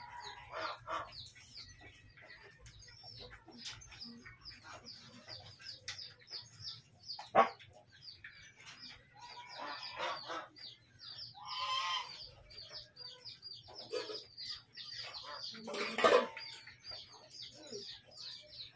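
Chickens calling: a continuous run of short, high, downward-sliding peeps and clucks. There is a sharp knock about seven seconds in and a louder clatter about sixteen seconds in.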